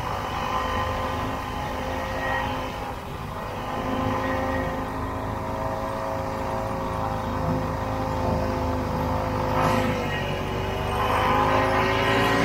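1967 Ski-Doo Olympique's 250cc single-cylinder two-stroke engine running as the snowmobile travels over snow. The engine note eases off about three seconds in and picks up again near the end.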